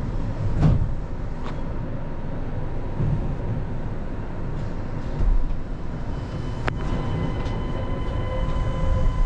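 Kanazawa Seaside Line rubber-tyred automated guideway train running, heard from inside the car: a steady low rumble from the tyres on the guideway, with a few sharp clicks. A faint steady whine joins about two-thirds of the way through.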